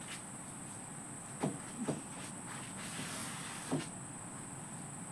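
A long bamboo pole knocking and rattling among tree branches to bring down rambutan fruit: a quick pair of knocks about a second and a half in, another just before two seconds and a last one near four seconds, with leaves rustling about three seconds in. A steady high insect drone runs underneath.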